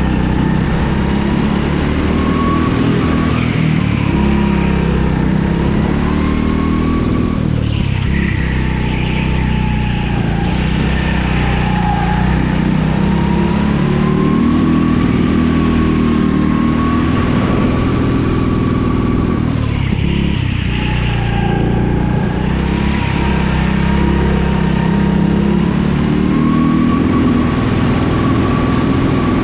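Rental go-kart engine running under hard driving, heard from the kart, its pitch rising and falling as the driver accelerates and lifts for the corners, with two clear drops in revs, about a quarter and about two-thirds of the way through.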